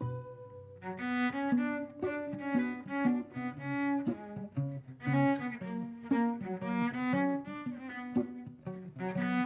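Cello and 10-string bandolim playing a lively duo tune: a low note is held at first, then a busy run of short notes begins about a second in.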